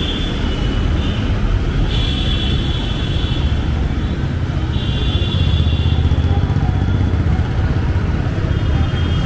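Busy city road traffic: a steady low rumble of passing vehicle engines, with a high buzzing sound that comes and goes a few times.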